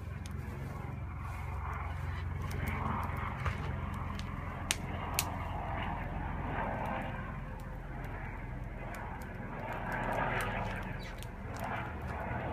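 Wood campfire crackling in a fire pit, with two sharp pops about halfway through, over a steady low rumble.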